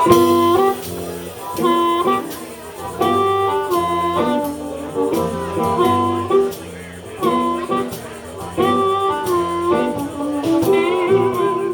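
Live blues band playing an instrumental passage: a short lead riff repeated over and over above a steady bass line and drums.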